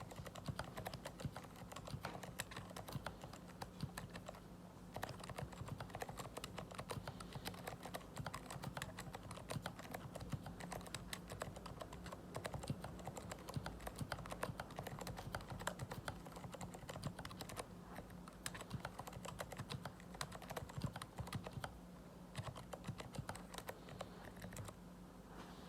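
Typing on an Idobao ID67 mechanical keyboard with aluminium case and unlubed Kailh Box Silent Brown switches: a quick stream of soft, muffled keystrokes, with short pauses now and then.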